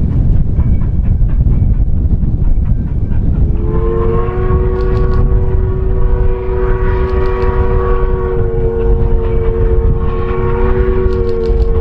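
A train horn sounds one long, steady chord, starting about four seconds in and still held at the end, over a loud low rumble throughout.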